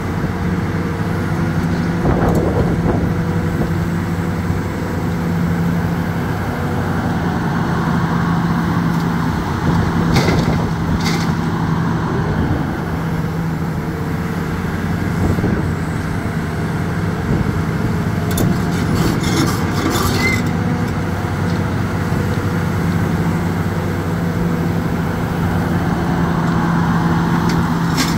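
Hitachi 350 Series 7 tracked excavator's diesel engine running steadily under hydraulic load as the machine lifts its boom and swings a bucket of gravel. Short metallic clanks and rattles come about ten seconds in, around twenty seconds in, and again at the very end.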